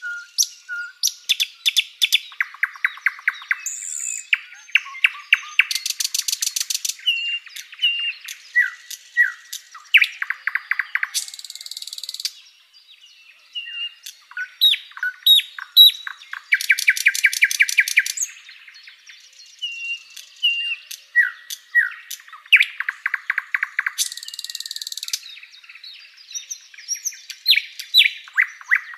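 Songbird singing a varied song of chirps, short whistles and fast trills of rapidly repeated notes, with a short pause a little before halfway.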